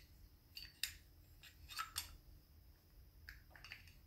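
Faint metallic clicks and taps as a steel blade is fitted and seated into a metal spokeshave body: several short, separate ticks spread over a few seconds.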